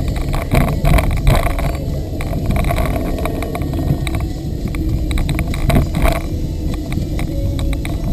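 A car driving, heard from inside the cabin: a steady low engine and road rumble with scattered short clicks and knocks, like interior rattles over the road surface.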